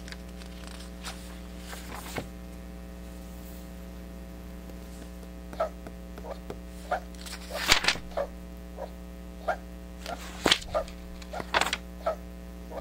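Steady electrical mains hum with a buzzy edge. Over it come short, sharp clicks and taps, scattered at first and coming thick and fast through the second half.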